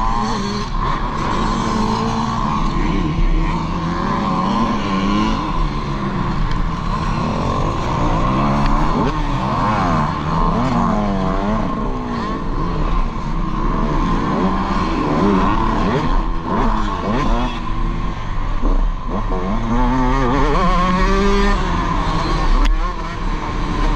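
Dirt bike engine revving hard, its pitch climbing and dropping again and again as the throttle is opened and closed through the gears.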